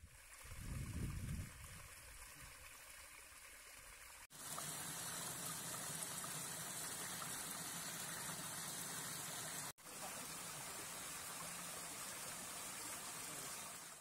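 Small mountain-stream cascades of water spilling over rocks, a steady rushing, with two brief dropouts where the recording cuts, about four and ten seconds in. A low rumble is heard in the first second or so.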